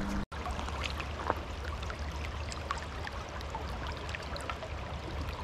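River water running and trickling steadily, with a few faint clicks.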